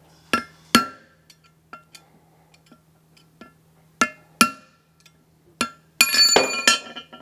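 Hammer striking a punch to drive a bearing race out of the final-drive case: sharp, ringing metal-on-metal blows, a pair at the start, another pair about four seconds in, then a quicker run of blows near the end. Each blow moves the race a little, struck on alternate sides so it does not bind.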